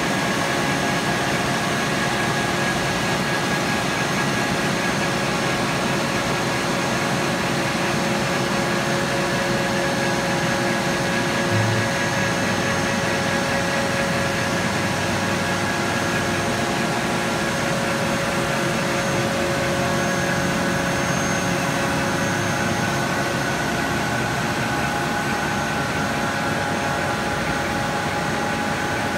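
Steady industrial machinery hum: several steady tones over an even hiss, unchanging throughout.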